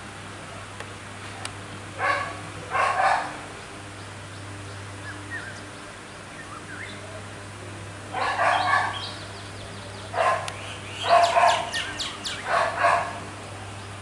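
Harsh animal calls in short bursts: two near the start, then a denser run of rapid, chattering calls in the second half.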